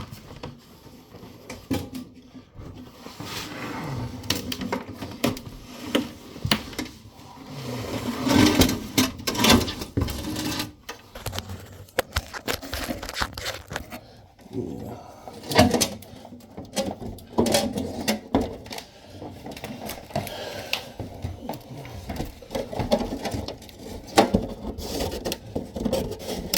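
Irregular knocks, clacks and scraping from parts and tools being handled during the installation of a downdraft range and its vent.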